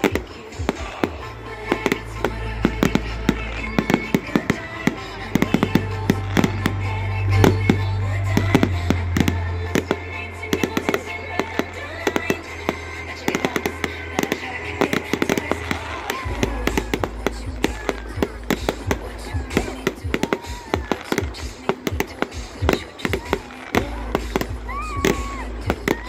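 Fireworks display: a rapid, irregular run of aerial shell bangs and crackling over music with sustained deep bass notes that change every few seconds.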